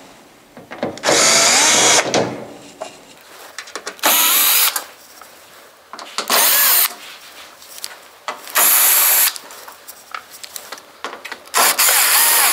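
Cordless drill with a Phillips bit run in five short bursts, backing out the Phillips screws that hold a dehumidifier's rear cover. Light clicks and handling noise come between the bursts.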